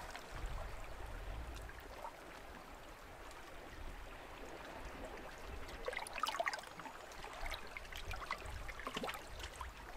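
Faint outdoor ambience of gentle water washing, with a low wind rumble and a few small clicks about six and nine seconds in.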